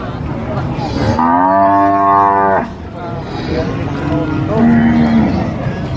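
Cattle mooing: one long moo from about one second in to two and a half seconds, then a second, lower call a second later.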